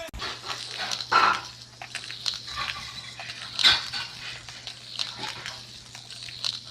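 A pet animal's short calls, several times a second or so apart, over a steady low hum.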